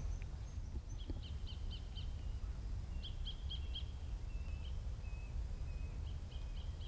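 A small bird calling in quick runs of short, high chirps, several runs with brief pauses between them, one run a little lower in pitch near the middle. A steady low rumble lies underneath.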